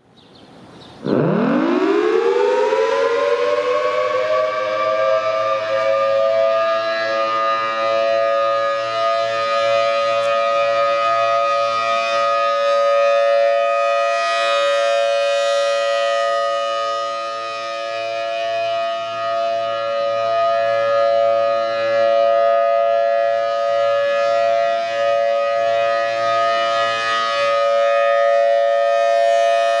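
Federal Sign and Signal Thunderbolt 1000T outdoor warning siren winding up about a second in. Its pitch rises steeply, then levels off into a steady wail within a few seconds. The loudness slowly swells and fades as the siren head rotates, which is normal during a routine monthly siren test.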